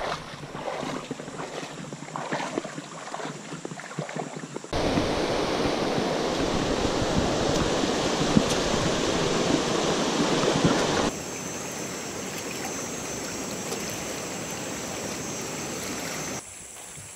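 Rushing river water in several spliced stretches: lighter splashing first, then a loud, dense rush of rapids for about six seconds, then a steadier, quieter flow with a high steady hum over it.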